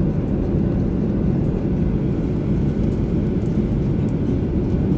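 Steady cabin noise inside a Boeing 737-800 in flight: a low, even rumble of its CFM56 engines and the airflow.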